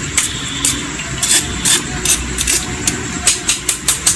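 Wire-mesh strainer basket clinking and scraping against a metal cooking pot as boiled anchovies are scooped out of broth: irregular sharp clicks that come faster near the end, over a steady low rumble.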